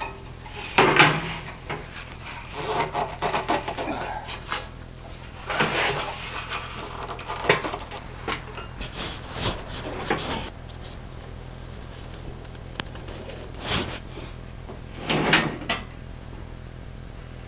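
Cut-open steel drums being handled and shifted: scattered scrapes, rubs and clunks of thin sheet metal, with a few louder knocks.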